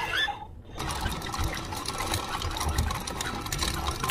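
Anchor chain rattling out over the bow through the anchor winch, a fast run of metal clinks beginning about a second in, over the wash of water against the hull.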